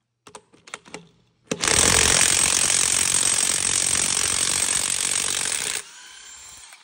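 Mac Tools cordless impact wrench hammering a truck wheel lug nut loose, a loud steady rattle for about four seconds, after a few clicks of the socket being set on the nut. Near the end it drops to a quieter run for about a second, then stops.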